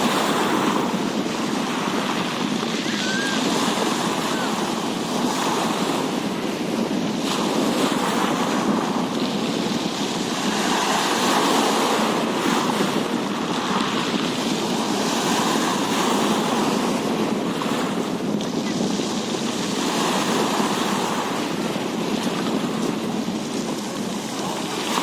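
Rushing water noise with wind on the microphone, swelling and easing every few seconds.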